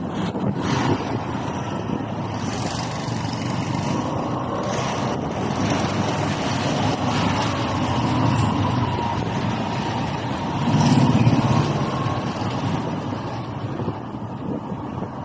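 Engine and road noise heard from a moving motorbike or tricycle in town traffic, a steady rumble with a faint wavering engine whine. It swells louder for about a second around eleven seconds in.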